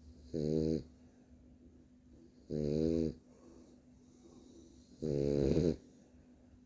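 French bulldog snoring in its sleep: three drawn-out snores about two and a half seconds apart, the last one longest and loudest.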